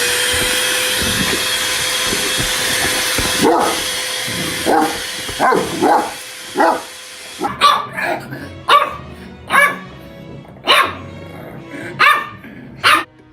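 A household appliance's electric motor spins up and runs steadily, then cuts off about seven and a half seconds in. Partway through, a dog begins barking and keeps on after the motor stops, with a run of sharp barks about one a second.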